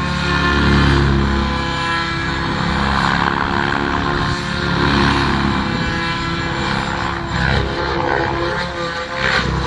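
Radio-controlled SAB helicopter flying 3D aerobatics: a steady rotor and motor whine that swells and falls as it manoeuvres.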